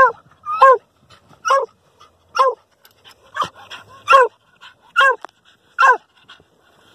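Dog barking from inside a burrow, short barks about one a second, while it holds an armadillo it has cornered underground.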